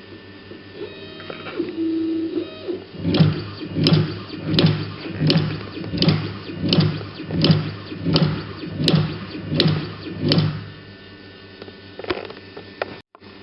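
Hot-knife tape-cutting machine (REZOMER SM-825) working: a brief motor whine about two seconds in, then about eleven regular machine cycles, roughly three every two seconds, each ending in a sharp click, before it stops and a couple of lone clicks follow near the end.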